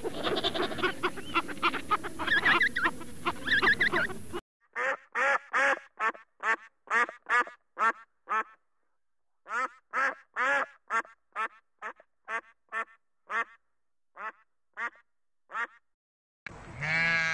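Canada goose honking: a run of short, separate honks about two or three a second, with a pause midway, after a first few seconds of dense, overlapping animal calls. Near the end a sheep starts bleating.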